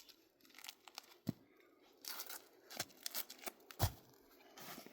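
Faint, irregular crunching and scraping of footsteps on dry ground and rock: a child scrambling over rocks and dry debris.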